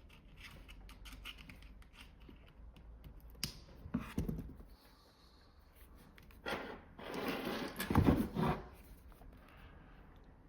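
Handling noises of cables and devices on a desk: scattered light clicks, a sharp click and a knock about four seconds in, then a longer scraping, rustling stretch with heavy knocks, the loudest part, near the end.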